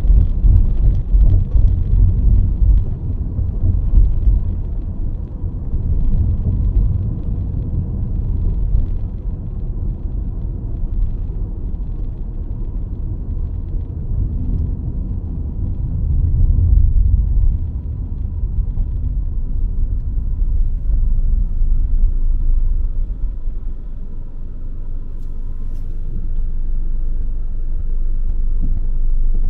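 Low, steady rumble of a car being driven, the drone of tyres and engine on the road. It eases off about two thirds of the way through and builds again near the end.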